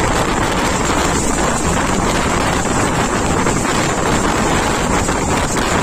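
Steady wind rushing over the microphone, mixed with the running noise of a moving passenger train, heard from the open window of the coach.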